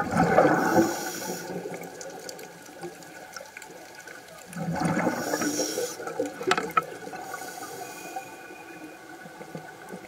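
Underwater recording of a scuba diver's exhaled bubbles rushing out of the regulator. There are two bubbling bursts about four and a half seconds apart, one exhalation each, with a low hiss between them.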